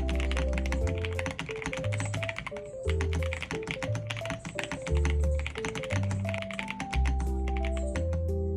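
Rapid typing on a mechanical keyboard fitted with KiiBoom Sprout Picnic keycaps: a dense run of key clacks, briefly pausing about two and a half seconds in, over background music with a bass line and a stepping melody.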